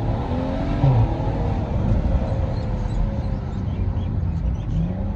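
BMW 335i's N55 turbocharged straight-six through a straight-piped Akrapovic exhaust, pulling under acceleration. About a second in there is a sharp loud crack as the revs drop. The engine then runs on steadily and starts rising again near the end.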